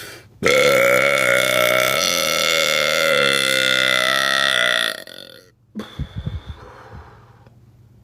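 A woman's long, loud belch, held for about four and a half seconds with a wavering pitch, then cut off. A few low thumps follow about a second later.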